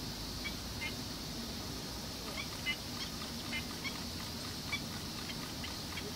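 Black-winged stilt calling: a series of short, sharp notes, about a dozen, repeated at irregular intervals.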